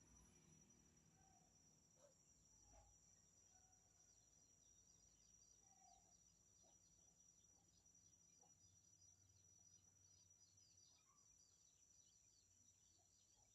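Near silence: faint outdoor nature ambience, with a steady high-pitched insect drone and many faint quick chirps.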